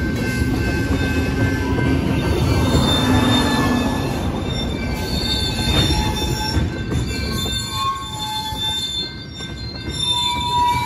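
Loaded oil tank cars of a slow freight train rolling through a grade crossing: a steady rumble of steel wheels on rail, with high, drawn-out squeals from the wheels coming and going over it.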